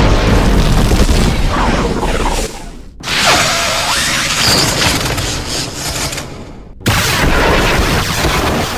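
Booming, whooshing sci-fi film sound effects in three abruptly cut segments, switching about three seconds in and again near seven seconds.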